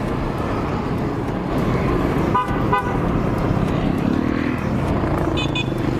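Two short vehicle horn toots about two and a half seconds in, over a steady street-traffic rumble, with a brief higher-pitched beep near the end.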